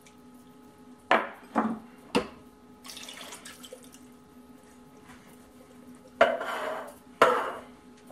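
Canned pineapple tidbits and their juice poured from a tin can into a slow cooker's crock, with a few sharp knocks early on and a longer wet splash of pouring about six seconds in, then another near the end.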